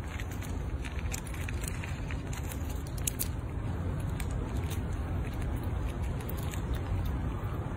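Fox squirrel gnawing at the shell of a whole walnut: faint, irregular scratchy clicks, a few closer together about three seconds in, over a steady low rumble.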